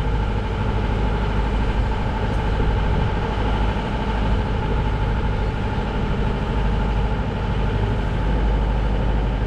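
Sailboat's engine running steadily while the boat motors along under power.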